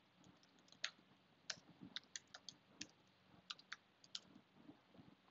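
Faint keystrokes on a computer keyboard: a dozen or so irregular clicks as a line of code is typed.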